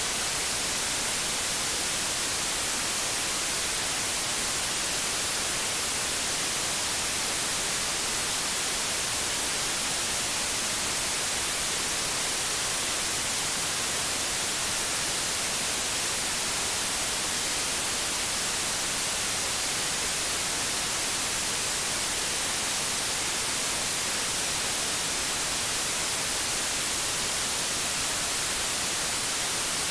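Steady white noise: an even, unchanging hiss that is brightest in the highs, with no tones or breaks.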